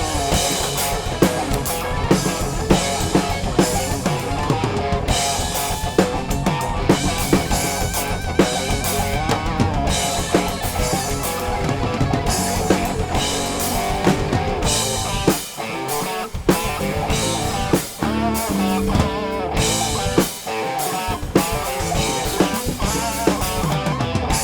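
Rock band jamming: a drum kit with a steady beat under guitars and bass guitar.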